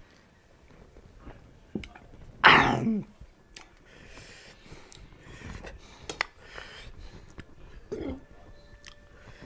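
A man clears his throat loudly, with a cough-like rasp, about two and a half seconds in, just after gulping cola from a can. Softer wet, sticky sounds and small clicks of eating rice by hand follow, with a short grunt near the end.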